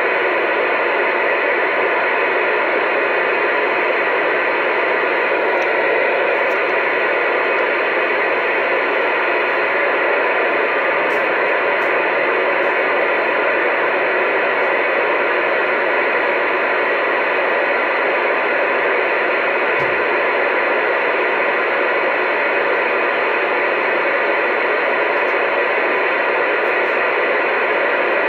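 CB radio speaker hissing with steady static, tuned to 27.285 MHz AM (channel 28) with no station talking. A single short low knock about twenty seconds in.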